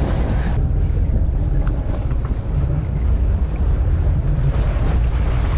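Steady low rumble of wind buffeting the microphone aboard a boat at sea.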